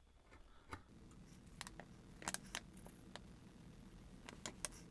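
Faint, scattered clicks and taps of small wooden parts and tools being handled on a workbench, several close together in the middle and near the end.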